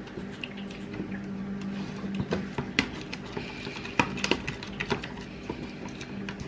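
A spoon clicking and tapping against a bowl in irregular strokes, a few per second, as egg yolks and a whole egg are stirred together, over a steady low hum.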